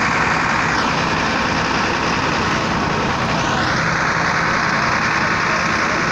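Mercedes-Benz fire engine's engine running steadily at a building fire: a loud, constant noise with a low hum underneath.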